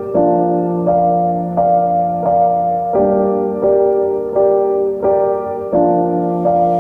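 Background piano music: sustained chords changing about every three-quarters of a second.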